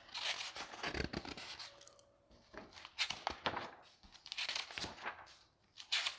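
Loose printed pages of a service manual being leafed through: dry paper rustles in several short bouts with brief pauses between.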